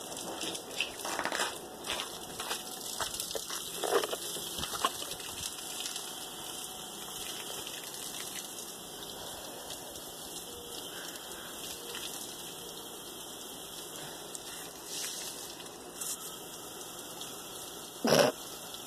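Steady hiss of water spraying from a garden hose's green balloon-filling fitting, with a few knocks and rustles in the first five seconds and one sharp knock near the end.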